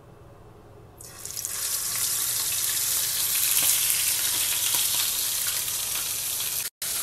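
Masala-coated kingfish roe sizzling in hot coconut oil in a nonstick frying pan. The sizzle starts suddenly about a second in, as the roe goes into the oil, and runs on steadily with small crackles, with a brief break near the end.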